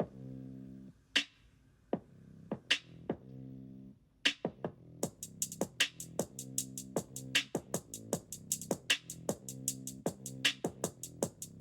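Background music: an electronic beat with sustained low synth chords. A fast run of hi-hat-like ticks comes in about five seconds in.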